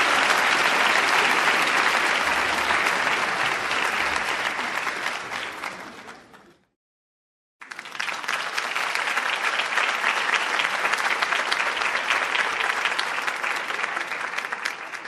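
Audience applause: one round fades out about six and a half seconds in. After a second of silence a second round starts abruptly, with more distinct individual claps, and fades away near the end.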